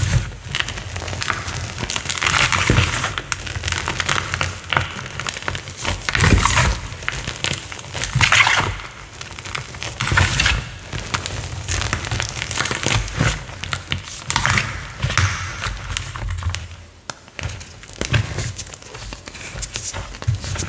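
Chalk being crushed, crunching and crackling in repeated bursts every couple of seconds.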